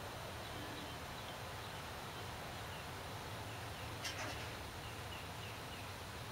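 Faint room tone: a low steady hum and hiss, with one soft click about four seconds in and a few faint, evenly spaced high chirps near the end.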